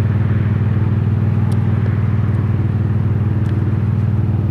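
Truck engine idling steadily with a low, even rumble.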